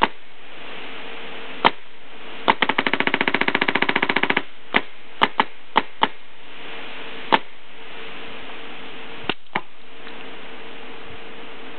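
Proto Matrix Rail electropneumatic paintball marker firing on compressor air: single shots, then a rapid string of about fifteen shots over two seconds, then more single and paired shots spaced out, over a steady low hiss.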